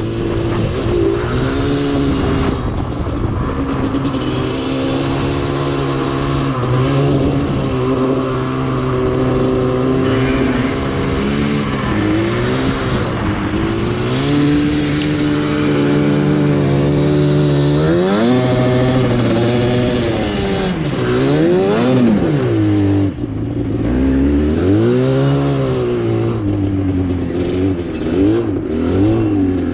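Yamaha Banshee ATV's twin-cylinder two-stroke engine running under load while being ridden. It holds a fairly steady pitch for the first half, then revs up and down several times in the second half.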